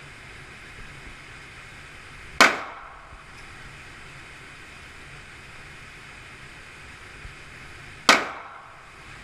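Two single pistol shots from a 9mm Glock, about six seconds apart, each a sharp crack with a brief ring-out, over a steady background hiss.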